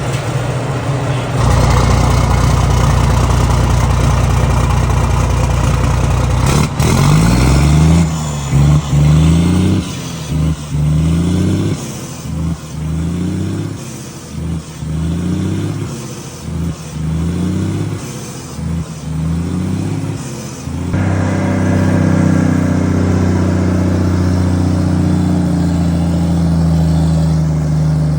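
Volvo FH truck's straight-six diesel running through an aftermarket exhaust, rumbling. It holds a steady speed at first, then is revved in a long string of quick throttle blips, about one a second, each rising in pitch and dropping back, before settling to a steady run near the end.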